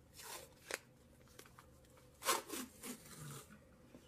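Hands handling things on a tabletop: a short rub and a small click in the first second, then a louder cluster of scuffs and knocks a little past two seconds in, as the glue bottle is taken away and a roll of tape is set down.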